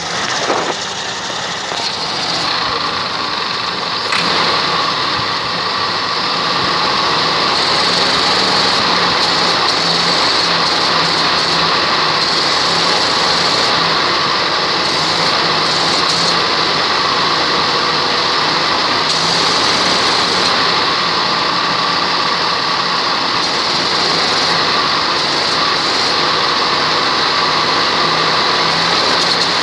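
Toyota Kijang's air-conditioning compressor running with a loud, rough, snoring grind over the running engine. The noise swells over the first couple of seconds and then holds steady. It is a sign of internal compressor damage from oil that was never changed, which the uploader says could be scored pistons and cylinder block.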